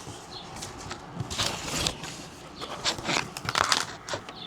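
Packaging rustling and crinkling in irregular bursts, loudest in the middle: the squishy box and its wrapped contents being opened and handled.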